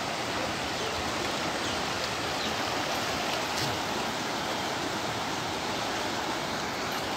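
Muddy flash-flood water rushing past in a steady torrent.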